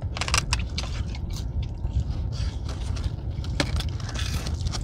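Close-up eating sounds of fried onion rings and fries being bitten and chewed, with scattered short clicks and a quick run of clicks about a third of a second in, over a steady low rumble.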